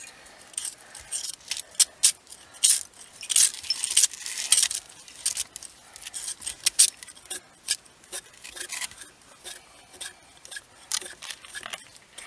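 Knife blade scraping and shaving bark off a branch in quick, irregular strokes. It is busiest and loudest in the first few seconds and sparser later.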